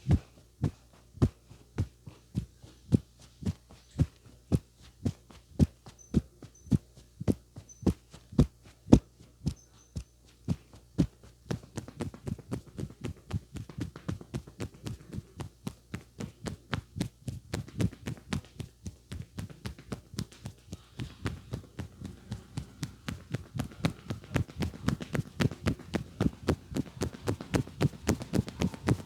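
Percussive massage: a barber's hands striking a client's head and shoulders in a steady rhythm of sharp slaps, about two a second. After some eleven seconds the strikes quicken to about four a second and grow fuller.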